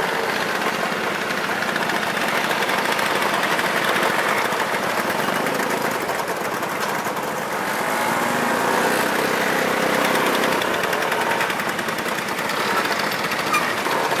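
Several motorcycle engines running together, a steady, dense engine din.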